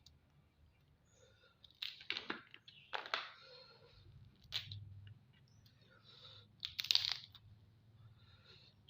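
Mud crab being broken apart and eaten: shell cracking, crunching and tearing in several short bursts, the loudest near the end.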